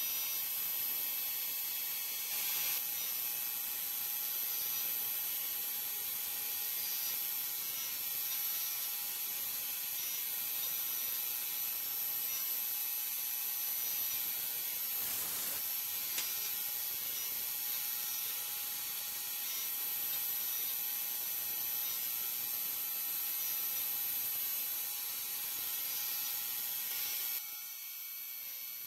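Fadal CNC vertical machining center surfacing plastic with a two-flute ball end mill: a steady high-pitched spindle whine with the hiss of the cut. It turns quieter shortly before the end.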